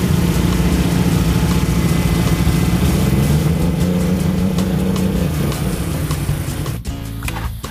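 Steady engine drone aboard an electrofishing boat, its pitch rising slightly a few seconds in and easing back. It breaks off suddenly near the end.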